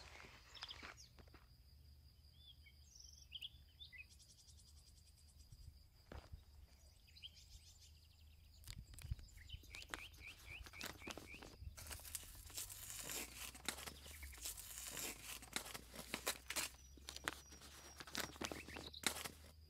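A paper envelope being handled and then torn open by hand, a dense crackling rip in short runs over the last seven or so seconds. Birds chirp faintly in the first half.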